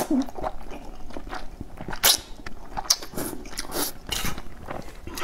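A person slurping and chewing thick noodles in broth, with several short slurps spread through, the loudest about two seconds in.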